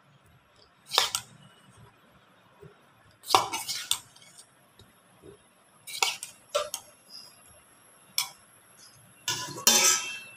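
Steel spoon clinking and scraping against a stainless-steel bowl and plate as boiled tapioca pieces are spooned out. It comes as about six separate clatters, the longest and loudest near the end.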